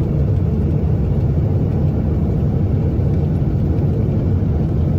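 Steady low rumble of an airliner, even and unbroken.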